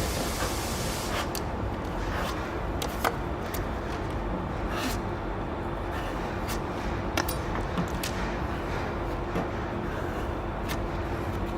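Body filler being worked with a putty knife: scattered light clicks and short scrapes over a steady background hum.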